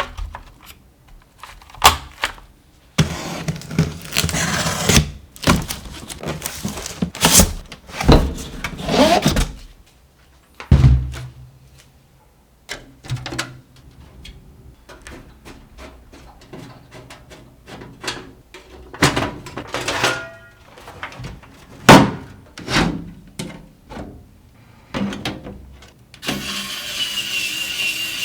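Clicks, knocks and scrapes of computer parts and a PC case being handled and fitted together, with a small motor whirring for about two to three seconds near the end.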